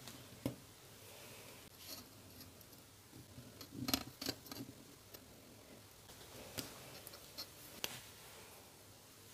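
A blade cutting through leather along a steel ruler, with a short run of cutting and scraping about four seconds in and scattered light clicks and taps of the ruler and tools on the bench.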